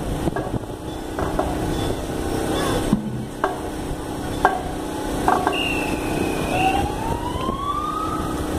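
An emergency vehicle's siren gives a few short chirps, then winds up in a long rising wail near the end, over steady street noise.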